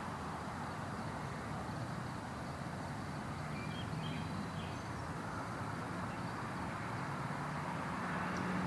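Steady outdoor background noise with a low hum, and a few faint bird chirps about four seconds in.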